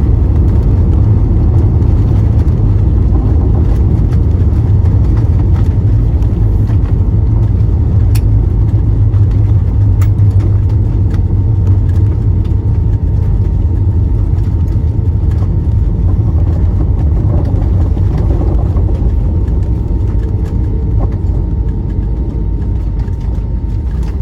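Airbus A320neo cabin noise during the landing rollout: a loud, steady low rumble of the engines and the wheels on the runway, easing off over the last few seconds as the aircraft slows.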